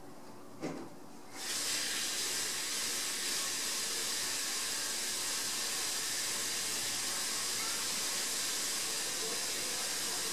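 A click, then a steady hiss that starts suddenly about a second and a half in and keeps going unchanged.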